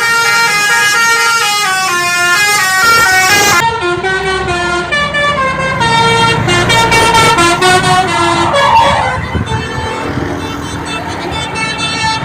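Basuri musical bus horn playing a tune, its notes stepping up and down quickly one after another, with a low rumble beneath from about four seconds in; the notes grow fainter after about nine seconds.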